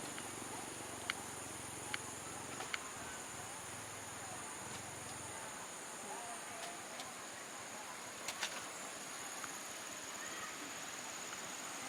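Steady high-pitched insect chorus over a constant hiss, with a few sharp clicks, two of them close together about eight seconds in.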